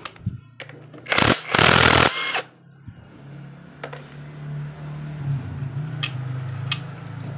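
Handling noise from a motorcycle clutch assembly being worked by hand: two loud rustling scrapes about one and two seconds in, then a steady low hum with a few light metallic clicks.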